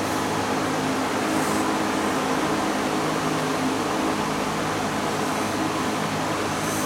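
Steady rush of air and low hum from a large electric fan running.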